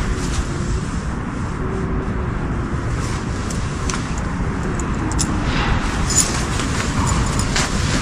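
Steady low rumble of wind and handling noise on the microphone, with rustling and sharp clicks of camping gear being packed, more of them in the second half. Behind it a faint, thin wavering wail drifts up and down and fades in and out: the distant 'lament' heard in the forest.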